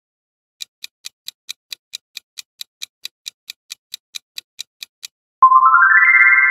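Quiz countdown-timer sound effect: clock-like ticking, about five ticks a second for some four seconds. About five seconds in, a bright rising chime of stepped tones follows, the answer-reveal sound, which is the loudest thing.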